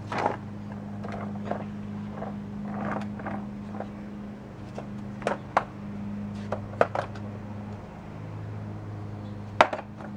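A small skateboard knocking and clattering on paving stones as it is pushed, tipped and set down: a few separate sharp knocks, the loudest near the end. A steady low hum runs underneath.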